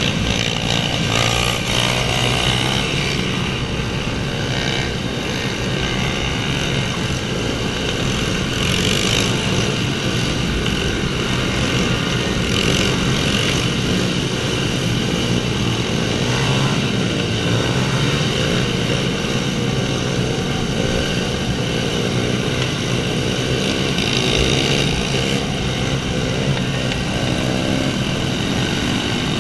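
A pack of pit bikes with small single-cylinder engines running together, several revving up and down at once.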